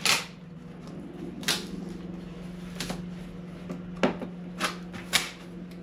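Cardboard packaging and parts being handled during unboxing: about six scattered knocks and rustles over a steady low hum.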